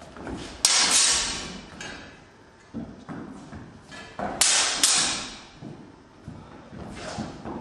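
Swords and bucklers clashing in sparring: a sharp ringing clang about two thirds of a second in, then two more clangs half a second apart around the middle, each ringing on for about a second, with lighter knocks between.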